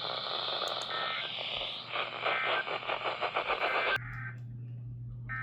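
Radio receiver static and hiss on an emergency alert broadcast, crackling in quick pulses through the middle. About four seconds in it cuts off abruptly to a steady low hum, with a short buzzy burst of alert data tones.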